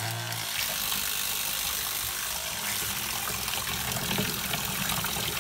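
12 V DC diaphragm spray pump running steadily, its motor and diaphragm giving a constant mechanical hum, while the jet from its outlet hose churns and splashes the water in a plastic tub.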